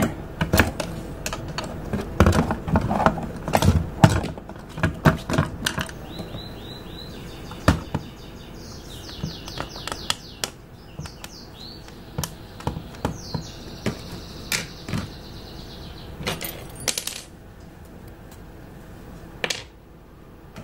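Plastic case parts of a Jumper T18 Pro radio transmitter being fitted and pressed shut by hand: a run of sharp clicks and knocks for the first eight seconds or so, then quieter high-pitched scraping of plastic on plastic, with a few more clicks near the end.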